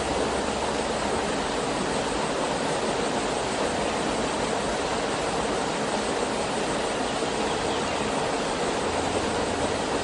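Small hot-spring waterfall falling into a rocky pool: a steady, even rush of water.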